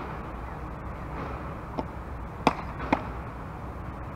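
A pitched softball pops into a catcher's leather mitt. There is a faint knock a little under two seconds in, then two sharp pops about half a second apart, over a steady background hiss.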